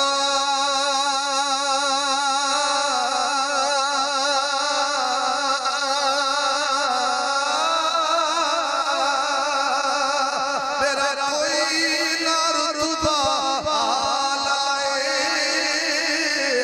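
A man's voice chanting in long, drawn-out melodic notes into a microphone, the held notes wavering in pitch; from about two-thirds of the way through, the melody moves more and climbs higher.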